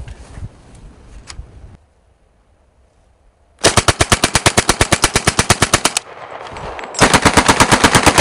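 MP40 submachine gun firing on full auto: a burst of about two and a half seconds at roughly nine or ten shots a second, then a second burst a second later. The first burst is preceded by a few fading shots and a short pause.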